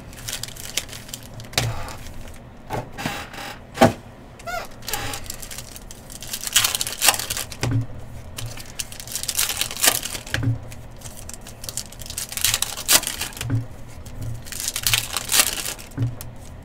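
Trading cards and packs being handled: irregular short clicks and snaps of card stock, with several longer crinkling rustles of pack wrappers.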